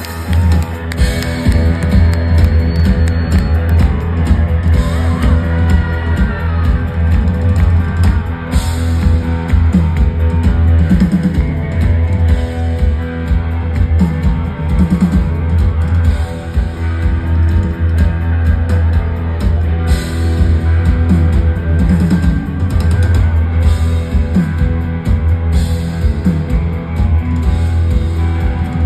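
Live rock band playing at full volume: electric guitars, bass and drum kit, with a heavy low end. The band comes in loud right at the start and keeps a steady drive throughout.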